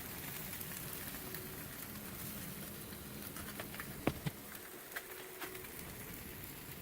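Faint steady outdoor background hiss with a weak low hum, and a couple of sharp light clicks about four seconds in.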